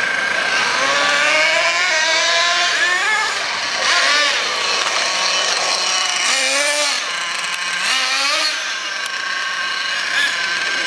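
Small glow-fuel (nitro) engine of an RC monster truck running with a high-pitched buzz, revving up and down repeatedly as the truck drives.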